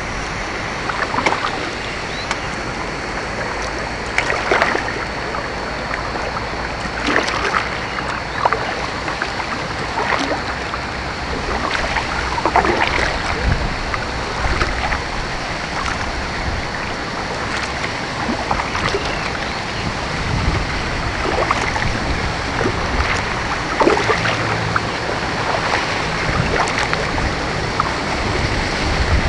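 Kayak paddle blades dipping and splashing in the water stroke after stroke, about one every one to two seconds, over a steady rushing noise of water and air.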